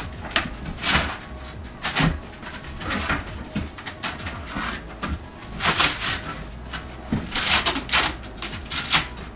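Wooden bed slats clacking and knocking as the joined roll of slats is spread out and pressed flat onto a metal platform bed frame: a series of irregular sharp wooden clacks, several in quick succession in the second half.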